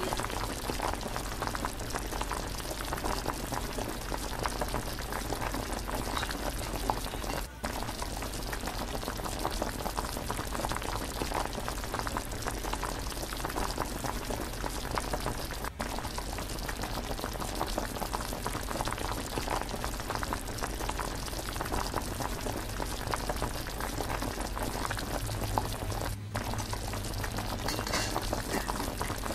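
Liquid boiling hard in a stainless steel saucepan on a gas burner: a steady, dense bubbling.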